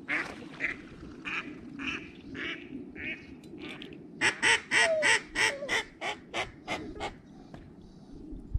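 Mallard hen-style quacking: scattered quacks at first, then a fast, even run of about ten louder quacks at roughly four a second that stops about seven seconds in.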